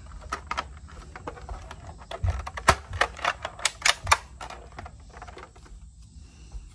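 Plastic Nerf blaster handled close to the microphone: a quick run of clicks and knocks, densest about two to four seconds in, then dying away.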